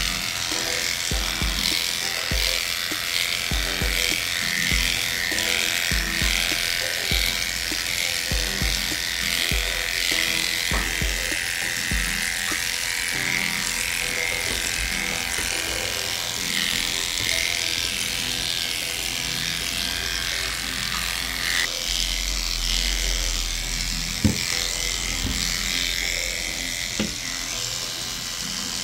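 Electric dog grooming clippers running steadily as they shave through matted fur, over background music with a low beat.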